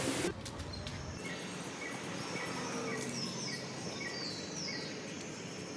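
Outdoor garden ambience: a bird repeats a short chirp about twice a second, with a few higher falling whistles in the middle, over a steady low background hum.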